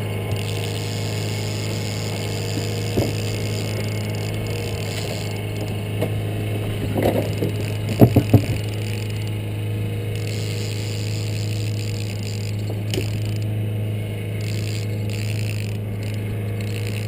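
A boat's motor running steadily at trolling speed, a low even hum, with a few short knocks, the loudest cluster about eight seconds in.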